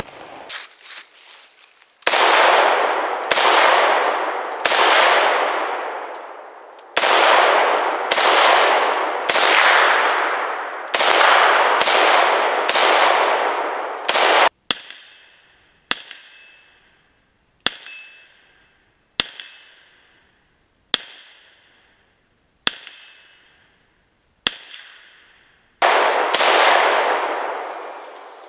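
Arsenal SLR-104FR semi-automatic rifle in 5.45x39mm firing about eleven single shots at an uneven pace, each crack trailing off in a long echo. These are followed by a run of about seven quieter, evenly spaced cracks with a short ringing tone, then one more loud shot near the end.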